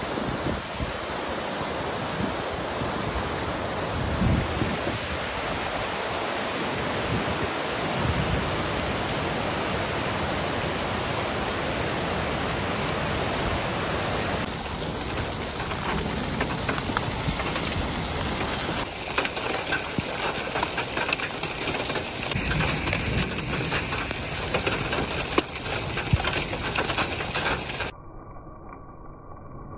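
Muddy rainwater runoff rushing and splashing down a rocky mountain gully: a loud, steady rush of water. Near the end it cuts off suddenly to a much quieter, thinner sound.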